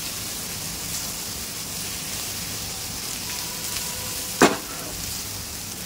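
Boiled rice being mixed with a spatula in a hot pan, over a steady sizzle of frying. One sharp knock against the pan comes about four and a half seconds in.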